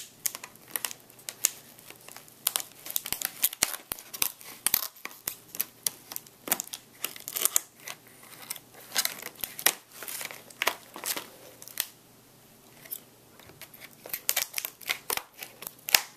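Stiff clear plastic blister packaging being cut and worked open, with rapid irregular crackles, crinkles and snaps of the plastic. There is a short lull about three quarters of the way through.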